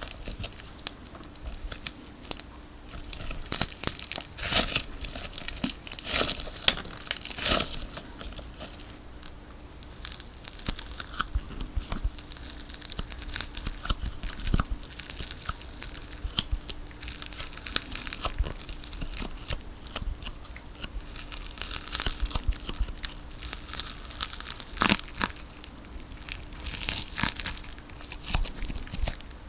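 Tape ball being cut open and its sticky tape layers peeled apart: irregular crackling and tearing, with louder rips about a quarter of the way in and again near the end. A faint steady hum runs underneath.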